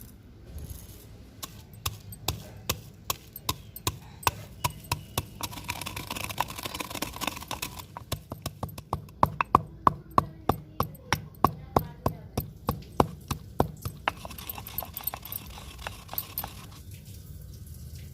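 Pestle pounding black peppercorns and cloves in a mortar: sharp, steady strikes about two or three a second, loudest in the second half, stopping about four seconds before the end.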